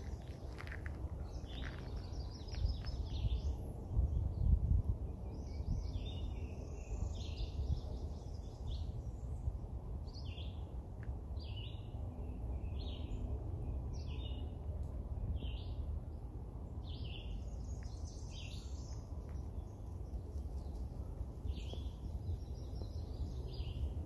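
Songbirds singing and calling, a string of short chirps and warbled phrases throughout, over a low steady rumble that is loudest about four seconds in.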